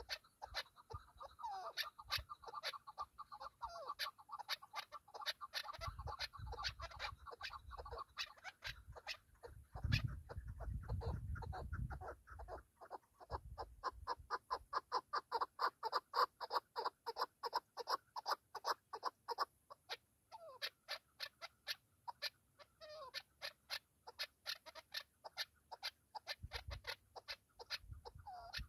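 Chukar partridge calling: long runs of rapid clucks, about four or five a second, strongest and most even in the middle stretch. A couple of low rumbles come in early on.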